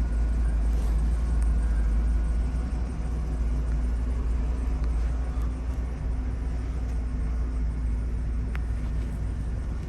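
Steady low engine drone with a faint hum on top, unchanging in speed.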